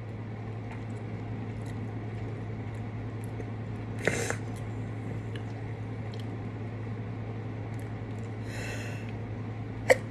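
A woman's nose and breath between sneezes in a sneezing fit: a short vocal catch about four seconds in, a breathy sniff near the end, and a sharp intake just before the next sneeze breaks. A steady low hum runs underneath.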